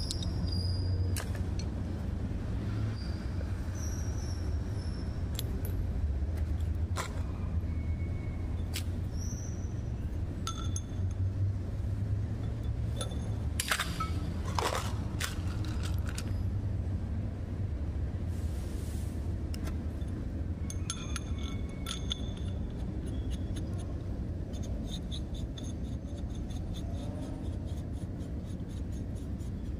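Metal air-rifle parts clinking and scraping as they are handled and taken apart by hand: scattered clicks and short ringing clinks, busiest about halfway through and again as a run of quick ticks near the end, over a steady low hum.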